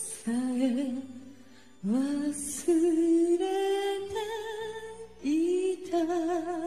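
Solo female voice singing unaccompanied: three phrases of long held notes with vibrato, with short breaks about two and five seconds in.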